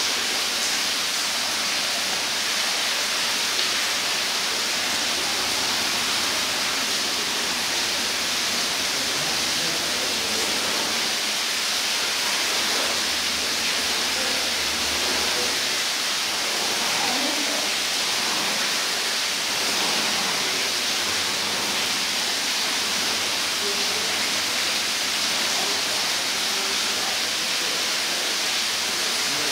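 Steady, even rushing hiss with no breaks, and faint voices here and there beneath it.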